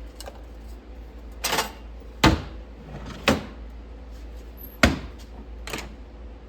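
A series of hard knocks and clunks, about five in six seconds, the loudest about two seconds in and near five seconds in: objects being handled and set down while rummaging for a mold.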